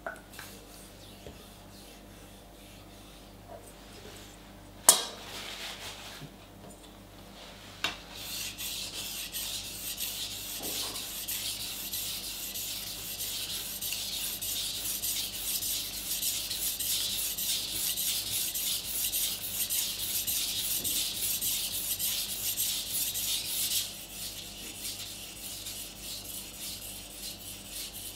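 A Global kitchen knife's steel blade being stroked back and forth on a wet whetstone: a continuous gritty scraping that starts about eight seconds in and eases off to a softer scrape a few seconds before the end. A sharp knock about five seconds in is the loudest sound, with a smaller one just before the scraping starts.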